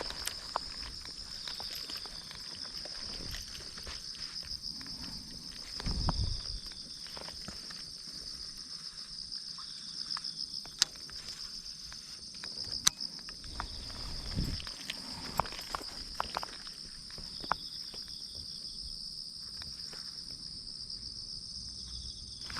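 Steady high-pitched insect chorus with a fast pulsing shimmer, over scattered small clicks and a couple of soft low thumps about six and fourteen seconds in.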